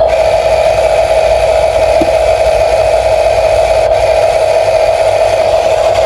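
Electric motor and plastic gearbox of a radio-controlled construction toy running with a steady whine.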